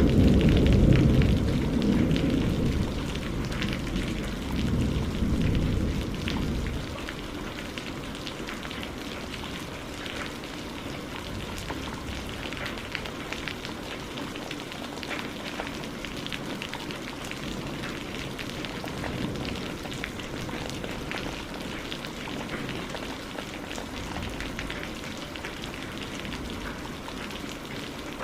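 Steady rain falling, with many small drop ticks over an even hiss. A low rumble, like rolling thunder, fades away over the first six seconds.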